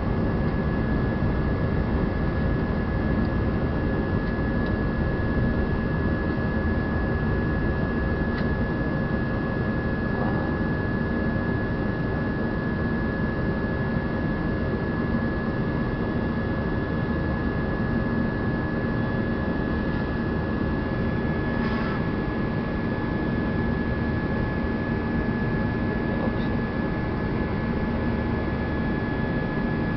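Jet airliner cabin noise during the climb after takeoff: a steady rumble of the turbofan engines and rushing air, heard from inside the cabin, with a constant high tone above it.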